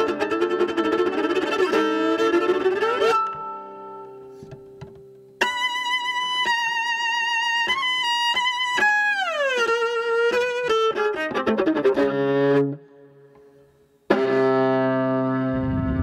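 Solo viola playing: fast, busy bowing that fades after about three seconds, then high held notes with vibrato that slide downward. After a brief near-silence it comes back with a loud, low sustained chord near the end.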